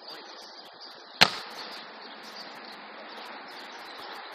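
A single sharp slap of a hand striking a beach volleyball about a second in, over a steady outdoor hiss.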